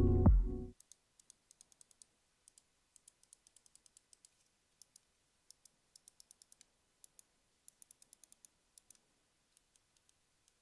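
Zaopin Z1 Pro gaming mouse being clicked: many light, faint clicks, some single and some in quick runs.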